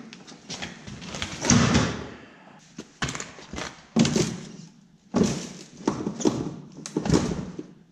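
Old Yamaha snowmobile's chassis and rear suspension thumping and rattling as a person steps onto the running board and bounces his weight on it, about once a second, testing the suspension springs just set tighter.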